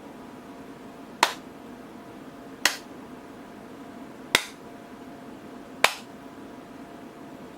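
Four sharp finger snaps, about one and a half seconds apart, over a faint steady hum.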